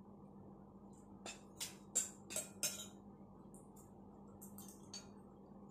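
Metal spoon clinking against a ceramic soup bowl and plate: about five quick clinks in a second and a half, then one more near the end, over a faint steady hum.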